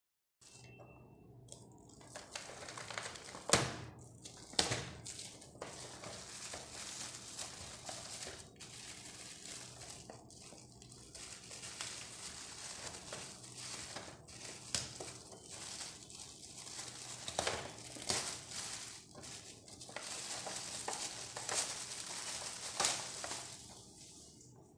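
Packaging being handled and opened: crinkling and tearing of plastic and cardboard, with a few sharp cracks, the loudest about three and a half and four and a half seconds in.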